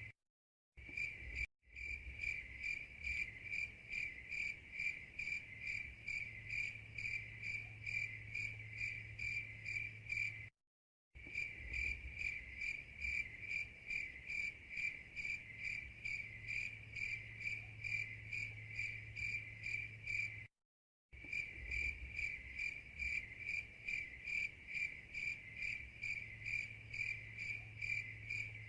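Crickets chirping: a steady, high-pitched, evenly pulsed trill with a faint low hum beneath, cutting out completely for a split second three times, roughly every ten seconds, where the looped recording restarts.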